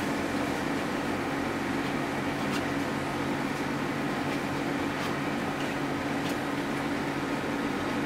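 Steady mechanical hum with a hiss, of the fan or air-conditioner kind, with a few faint ticks scattered through it.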